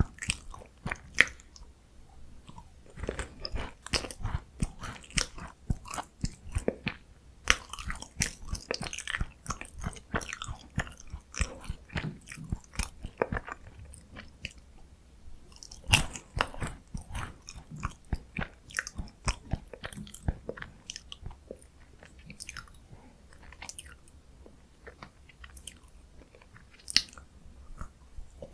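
Close-miked chewing and crunching of crisp Korean chocolate biscuit snacks, irregular crackly crunches with a few sharper bites standing out.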